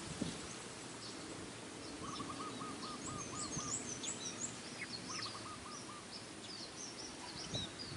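Wild birds calling: one bird repeats a short note about four times a second in two runs, about seven notes then four, while other small birds give brief high chirps over a low steady outdoor background.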